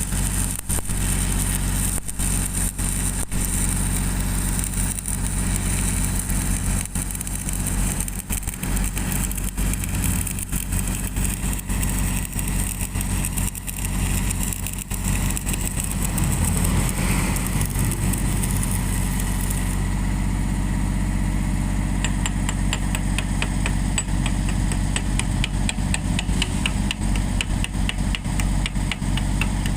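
Engine-driven welding generator running steadily, with the crackling hiss of a stick-welding arc laid over it for about the first twenty seconds. After the arc stops, a run of quick, evenly spaced ticks.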